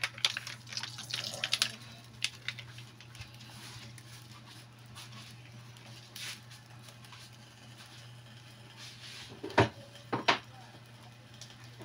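Pot of pork sinigang broth simmering: bubbling and popping, busiest in the first couple of seconds, then quieter over a low steady hum. Two sharp knocks come close together near the end.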